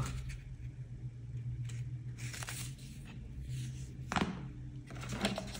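Paper leaflets and a booklet rustling as they are handled over an open cardboard box, with one sharper tap about four seconds in, over a steady low hum.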